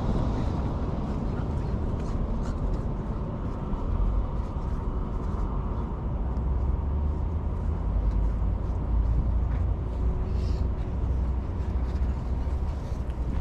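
Steady low rumble of wind buffeting the microphone outdoors, with a few faint light ticks.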